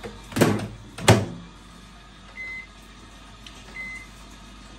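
Two clunks, then a microwave oven gives two short, high beeps about a second and a half apart.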